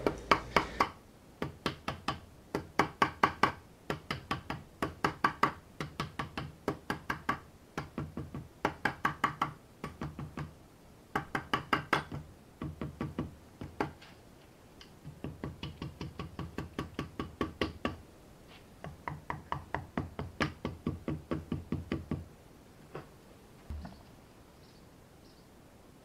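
Rubber mallet tapping the camshaft timing sprocket and its chain into place on a Skoda 105 engine block. Quick repeated knocks, about five a second, come in runs of a second or two with short pauses and stop a few seconds before the end.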